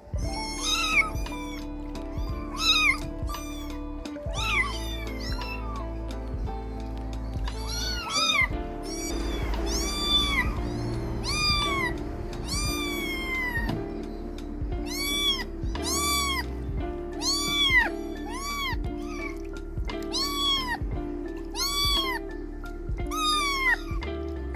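Kittens meowing over and over, high thin cries that rise and fall, about one a second, over background music with steady held notes and a bass line.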